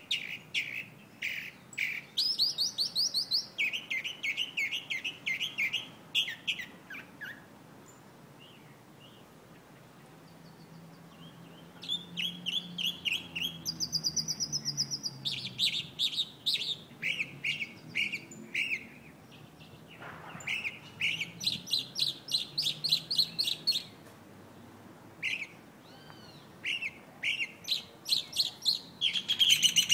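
Chalk-browed mockingbird singing: a long run of varied phrases, each a quick series of repeated notes, broken by a pause of a few seconds about a quarter of the way in.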